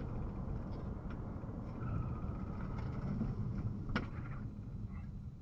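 Steady low rumble of a car driving, as a windshield dashcam picks it up from inside, with a sharp click about four seconds in.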